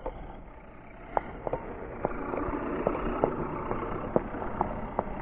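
Axial SCX10 RC crawler driving on its Castle Creations Mamba X 4600kv brushless sensored motor: a steady motor and drivetrain sound that grows louder about two seconds in, with scattered sharp clicks.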